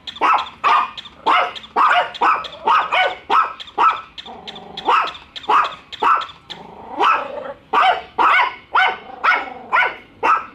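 Small dogs, a Chihuahua and a Yorkshire Terrier, barking over and over at a toy dog, about two sharp barks a second, with a few longer, drawn-out barks in the middle.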